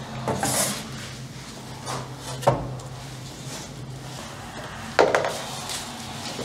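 Flat cut panels being handled and set down on a boat's hold floor: a scrape about half a second in, a sharp knock about two and a half seconds in, and another knock with a short scrape about five seconds in. A steady low hum runs underneath.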